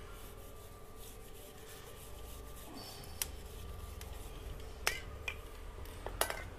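Motorcycle drive chain being wiped with a cotton cloth while the rear wheel is turned backwards by hand: faint rubbing, with a few sharp, spaced-out clicks in the second half. The cloth is wiping the chain cleaner and loosened dirt off the chain.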